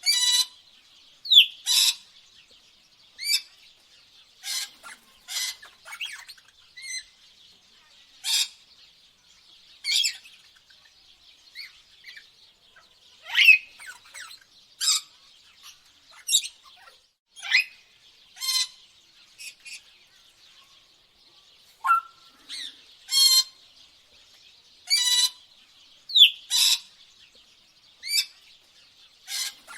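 Birds calling: short, sharp chirps repeating every second or two, some with quick pitch glides, over a faint steady background chorus.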